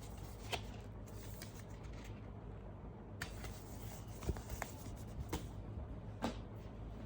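Hands handling unboxed items: several light, sharp clicks and taps at uneven gaps over a low steady hum, the strongest about four seconds in and near the end.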